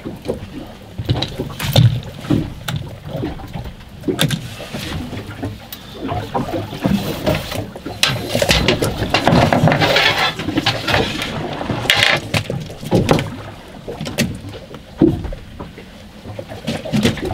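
A gaffed cod being handled on a boat deck: irregular knocks, thuds and clatter from the gaff, fish and gear, with a few longer bursts of noise in the middle.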